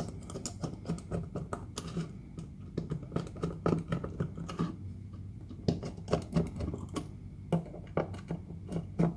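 Small screwdriver driving the corner screws into a plastic electronics case: a run of light, irregular clicks and ticks, a few of them sharper, as the tip turns in the screw heads and the case is handled.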